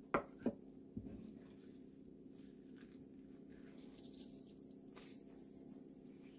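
Two sharp knocks near the start, then hands squeezing blanched chwinamul greens: faint wet squishing and water dripping onto a wooden cutting board, over a faint steady hum.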